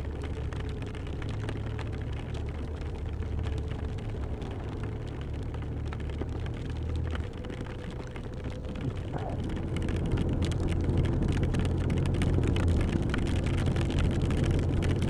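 BMW touring motorcycle riding on a wet road in heavy rain: a steady low engine hum under wind and tyre noise, with raindrops spattering against the microphone. The noise grows louder about two-thirds of the way through.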